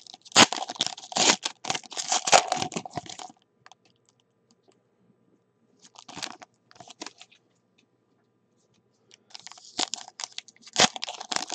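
Foil wrappers of 2018 Panini Select football card packs crinkling and tearing as they are ripped open by hand. There is a burst for about three seconds, a short patch around six seconds in, and more from about nine seconds on.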